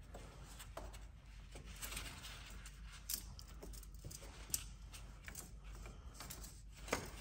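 Faint clicks and light scraping of an oil filter wrench being worked onto a car's oil filter by gloved hands, with one sharper click about four and a half seconds in.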